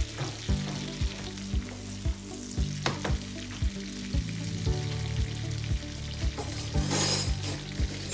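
Butter sizzling and foaming with sliced almonds in a nonstick frying pan, with frequent sharp pops and a brighter hiss about seven seconds in. The butter is browning, its milk solids cooking.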